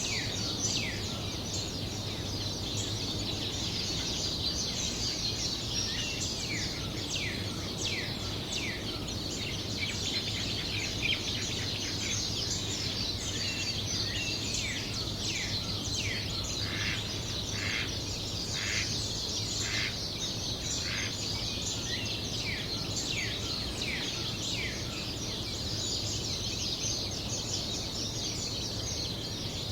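Dawn chorus of many songbirds chirping and singing, dense with quick downward-sweeping notes that crowd together in the middle, over a steady low background hum.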